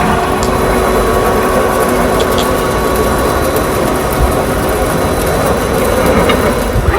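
Miroku MEG-600-1NC NC gun drill running: a steady mechanical hum carrying a few faint steady tones, with occasional light clicks.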